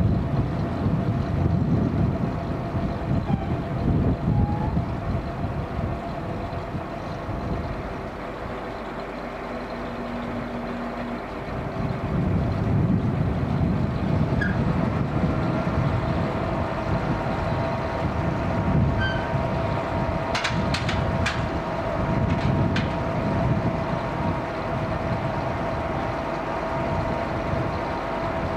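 Engine of a Dennis fire appliance running to power its Metz turntable ladder's hydraulics while the ladder is raised and extended, a steady low rumble with a steady whine over it. It eases off a little before halfway and picks up again, and there are four sharp clicks about two-thirds of the way through.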